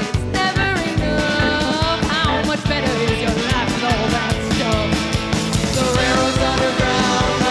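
Live band playing: a woman singing lead with a wavering, held voice over upright bass, electric guitar and drums.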